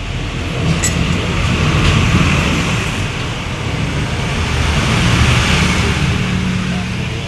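Yamaha Vixion motorcycle engine running, its rumble swelling twice as it is revved up and let back down.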